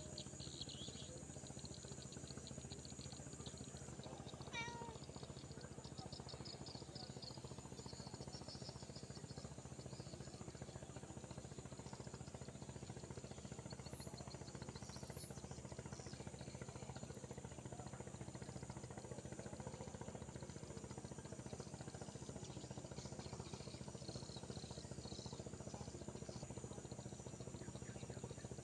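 Quiet outdoor ambience: a steady low hum with insects chirping high and thin on and off, and one short falling call about four and a half seconds in.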